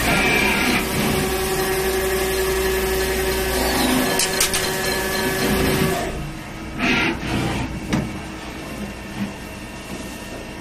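CNC machine running with a steady mechanical hum and whine. About six seconds in it drops to a quieter run, broken by a few short knocks.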